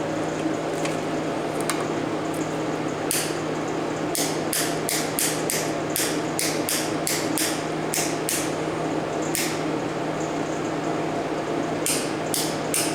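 Quick, sharp metallic taps and clicks from hand tools working on a small air compressor, about two or three a second for several seconds, stopping and resuming, over a steady electrical hum.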